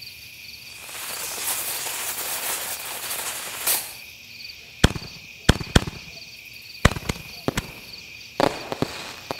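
Firecracker sound effect for a logo sting: a fizzing, crackling hiss like a lit fuse for about three seconds, then a string of about eight sharp firecracker pops. A steady high chirping runs underneath throughout.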